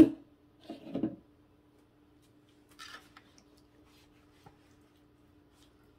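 A sharp knock, then a few soft scrapes and squishes as a silicone spatula stirs thick strawberry pie filling in a disposable aluminium pan, over a faint steady hum.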